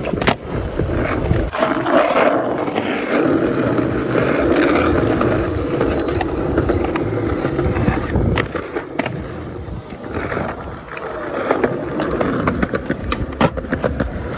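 Skateboard rolling on hard ground with a steady wheel rumble, broken by several sharp clacks of the board and trucks.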